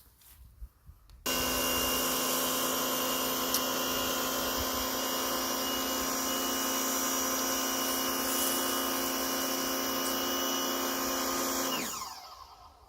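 Patoolio W8 electric pressure washer's motor and pump switching on about a second in, running with a steady whine, then spinning down with falling pitch near the end as it cuts out.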